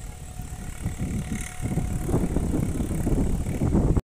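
New Holland 3630 tractor's three-cylinder diesel engine running while the tractor sits bogged in flooded mud, getting louder about two seconds in. The sound cuts off suddenly at the very end.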